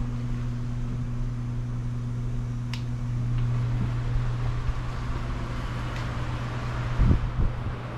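Steady low hum of ventilation machinery, with a few low thumps near the end.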